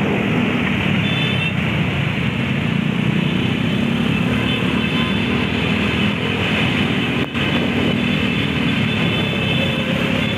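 Many motorcycle and scooter engines running together in slow convoy traffic, a steady engine hum close by over the road noise.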